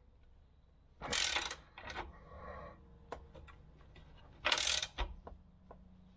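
Ratcheting combination spanner clicking in two short bursts, about a second in and again about four and a half seconds in, with a few faint single clicks between, as a bracket bolt is tightened.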